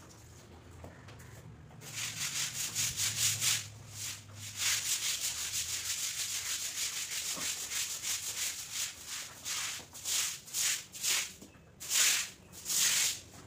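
Scrubbing strokes on a wet cement floor, quick and even at several a second, starting about two seconds in. Near the end come about five slower, longer swishes of a stiff stick broom sweeping across the wet floor.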